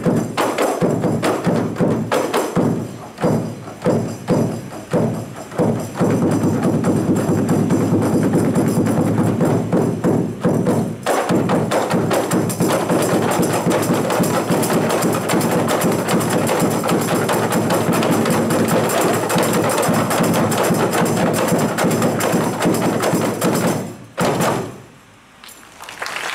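A kompang ensemble, many Malay hand frame drums struck with the palm together. The first few seconds are spaced strokes, then fast, dense interlocking drumming that stops abruptly about 24 seconds in.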